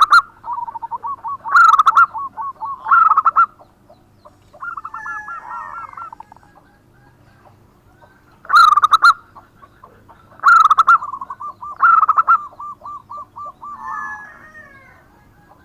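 Zebra dove (perkutut) cooing: repeated phrases of quick rolling coo notes, each marked by a few louder accented notes, with short pauses between phrases.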